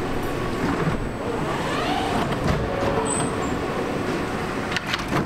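R160 subway car doors sliding shut, ending in a few sharp clunks about five seconds in as they close, over a steady mechanical rumble.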